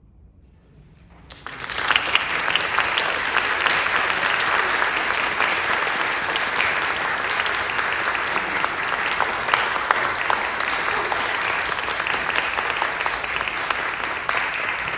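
A brief hush, then audience applause breaks out about a second and a half in and carries on steadily as dense hand clapping.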